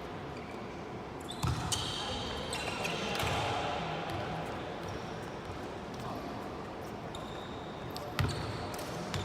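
Volleyball play in an indoor gym: a couple of sharp ball hits about a second and a half in and another near the end, with short shoe squeaks on the court floor and voices in the background.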